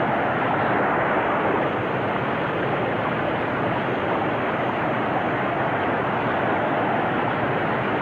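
Whitewater rapids rushing steadily, an even, unbroken wash of water noise with a dull top from the old film soundtrack.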